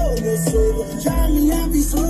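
Music with deep bass notes and a steady beat, played loud on a pickup truck's car sound system.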